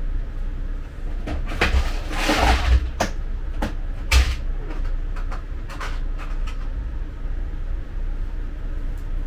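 A few sharp knocks and clicks with a short rustle, the sound of parts and tools being picked up and handled, over a steady low hum.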